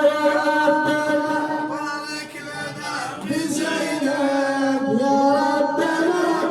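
Male voice chanting an unaccompanied Arabic devotional ode (a mawlid for Sayyida Zaynab), drawing out long held notes that bend and waver, with a short drop in level about two seconds in.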